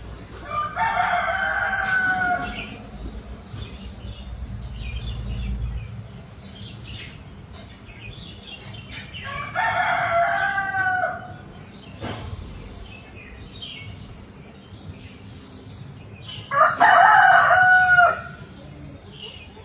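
Three long, drawn-out animal calls, each held on a steady pitch for about a second and a half to two seconds: one near the start, one about ten seconds in and the loudest about seventeen seconds in.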